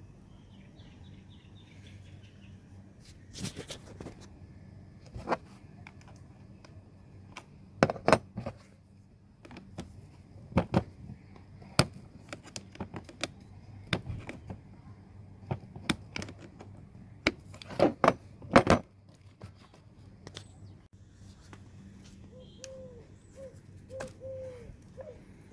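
Irregular metallic clicks and clinks of hand tools working on a car battery terminal and its fittings as the terminal is loosened and taken off, louder knocks a few times.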